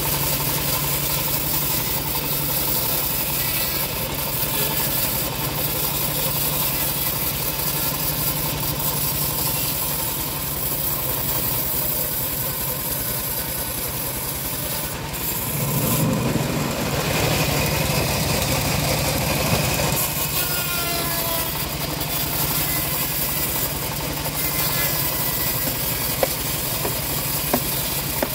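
Home-built band sawmill running: its motor hums steadily while the band blade saws lengthwise through a dry acacia log. The cut grows louder for a few seconds past the middle, and two sharp ticks come near the end.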